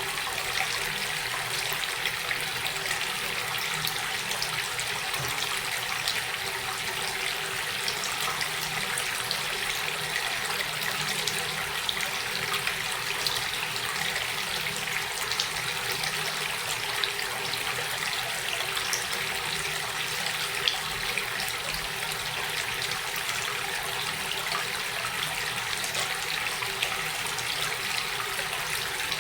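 Running water flowing and splashing steadily, a continuous hiss of water with small splashes and drips through it.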